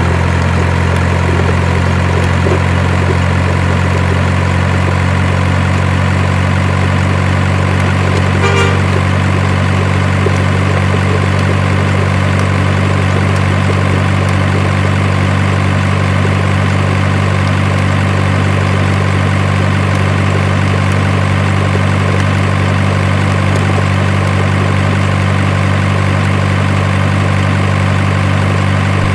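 Heavy truck engine idling, an unchanging low drone that sounds like a sound effect rather than anything the string-pulled toy trucks could make. A short beep-like tone sounds once about eight and a half seconds in.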